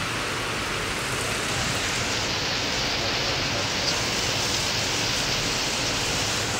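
Steaks and meat kebabs sizzling on a gas grill over open flames, a steady hiss.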